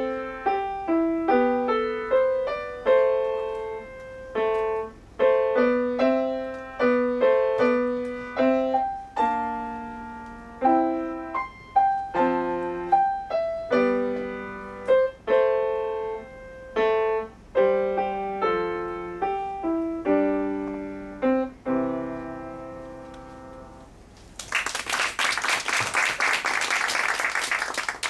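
Solo piano playing a melody over chords, note by note, closing with a low held chord that dies away. A short burst of audience applause follows near the end.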